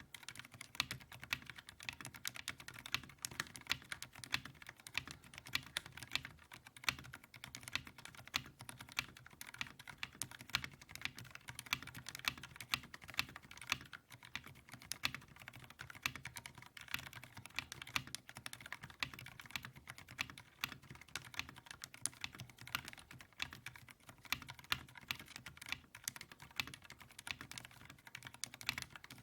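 Continuous fast typing on a mechanical keyboard with Akko Haze Pink Silent linear switches: soft, muffled key strokes with an occasional louder one, free of scratchiness. These are light silent linear switches in a 60% aluminium case with neoprene dampening, and the speaker describes their sound as very smooth and quiet.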